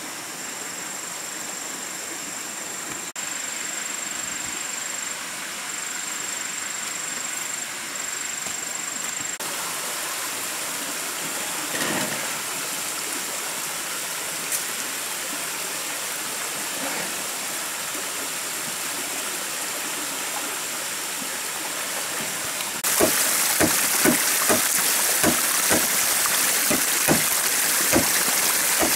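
A forest stream and small waterfall rushing steadily. In the last few seconds, a large knife chops at a green bamboo pole in quick sharp blows, about two a second, over the water.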